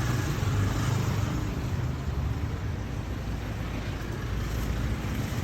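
Steady low rumble of road traffic, with no single sound standing out.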